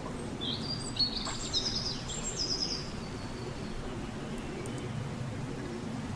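Birds chirping: a quick run of high chirps and short trills in the first three seconds, over a steady low rumble of outdoor ambient noise.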